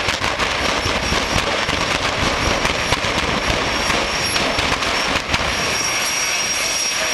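Drag-racing funny car at full power with its tyres smoking, a loud continuous crackling engine noise with a thin high whine over it.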